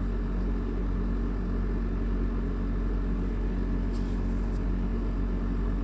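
Steady low background hum with no change in level.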